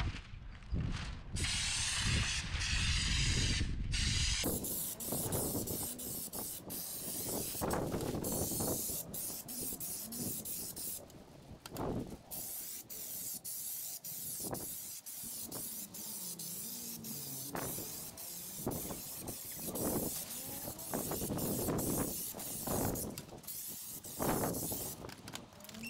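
Air-fed spray gun spraying Raptor bed-liner coating, hissing in short bursts as the trigger is pulled and released over and over. Wind buffets the microphone for the first four seconds or so.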